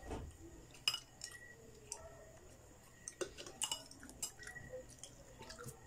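Spoons and forks clinking against soup bowls and plates while eating: a scatter of light, irregular clinks, the sharpest about a second in.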